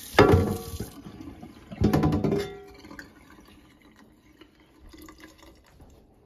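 Cast iron skillet clanking against a stainless steel sink twice, near the start and about two seconds in, each knock ringing briefly. Tap water running into the sink stops about a second in, and faint handling noises follow.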